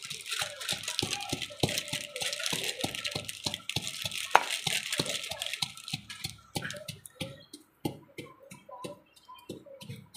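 Pestle pounding green chillies, garlic and ginger into a paste in a tall metal mortar: a steady run of knocks, about two to three a second, softer and sparser over the last few seconds.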